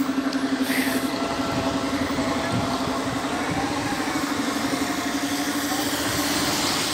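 Steady mechanical hum with a slight pulse under a continuous rushing noise, like a vehicle running.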